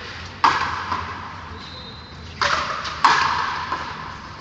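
Frontenis ball hit three times, cracking off the racket strings and the concrete front wall, each hit ringing out in the large covered frontón court.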